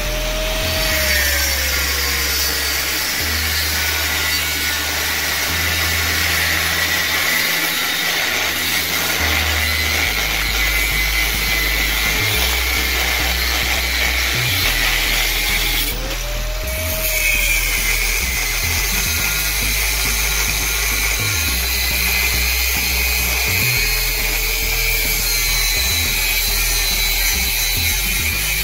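Angle grinder with a thin cut-off disc slicing through a layered steel Damascus billet, a steady high grinding hiss with showers of sparks.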